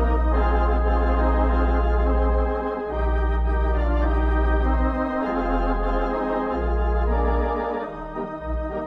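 Organ music: sustained chords held over a deep bass note that shifts several times. Near the end the bass breaks into short repeated notes.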